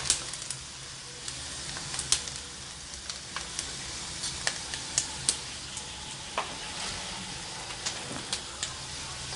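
Pork skin deep-frying in a wok of hot oil and puffing up into cracklings: a steady sizzle with scattered sharp pops.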